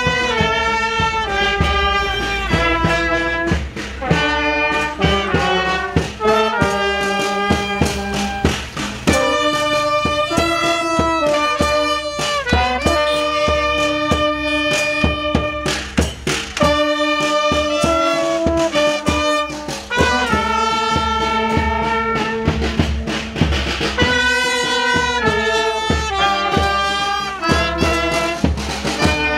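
Walking brass band of trumpets, baritone horns and clarinet playing a melody together, with a drum keeping time underneath.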